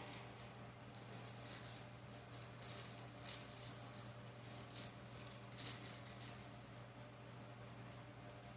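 Packaging being handled and rummaged through, rustling and rattling in short irregular bursts about once or twice a second.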